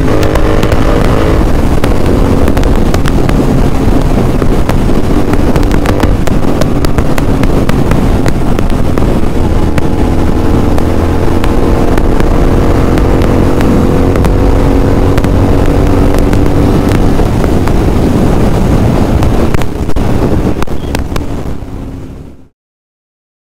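Royal Enfield Interceptor 650's 648 cc parallel-twin running through a Red Rooster full-system aftermarket exhaust at steady highway cruising speed, its exhaust note holding fairly even over loud wind rush. The sound fades out near the end and cuts to silence.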